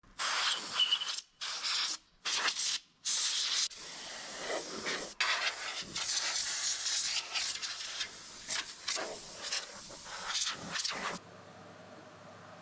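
Compressed-air duster spraying, blowing dust out of a computer's optical drive and tower case: four short blasts of hiss, then longer spraying that stops about eleven seconds in.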